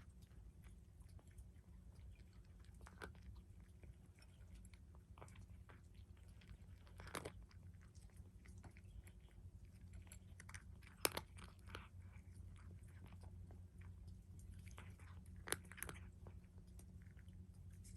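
A cat eating: faint, irregular crunching and chewing, with a few louder clicks scattered through.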